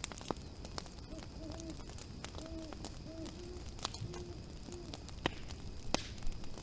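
An owl hooting, a series of short low hoots over about four seconds, over a crackling fire.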